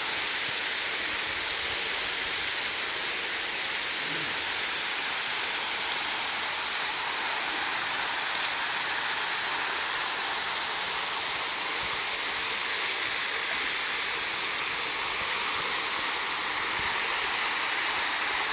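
Thin waterfall falling from a sandstone overhang into a shallow pool, a steady, even hissing rush of splashing water.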